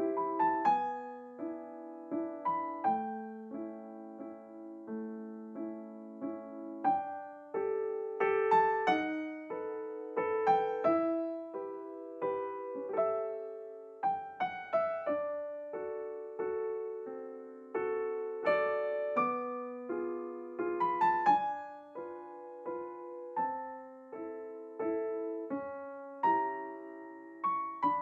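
Background piano music: a slow, gentle melody of single notes over soft chords.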